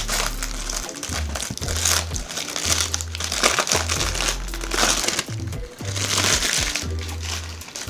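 Packaging crinkling and rustling in repeated bursts as it is handled and unwrapped, over background music with a steady bass line.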